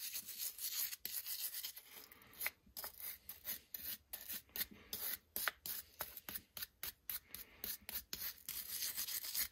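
Brass wire brush scrubbing the steel head of a ball peen hammer in short, rapid strokes with brief pauses, breaking loose rust residue left after an Evapo-Rust soak.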